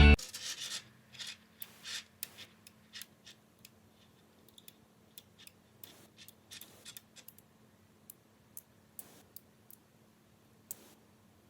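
Small magnetic balls clicking together as they are handled and placed, in irregular sharp clicks. The clicks are loudest and most frequent in the first couple of seconds, then sparser.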